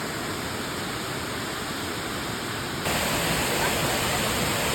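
A waterfall rushing steadily, growing louder and brighter about three seconds in.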